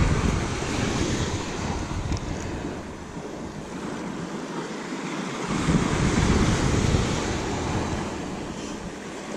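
Wind buffeting the microphone over the wash of ocean surf, swelling at the start and again about six seconds in.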